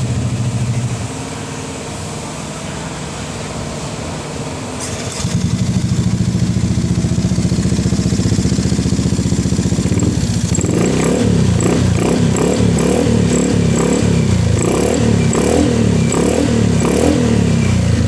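Honda Scoopy scooter's engine, bored up to 130cc, running. It steps up louder about five seconds in, then from just past halfway its pitch rises and falls over and over in quick succession.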